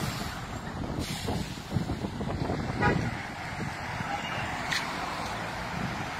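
Street traffic: cars driving past on the road, engines and tyres steady, with a few brief sharper sounds in between.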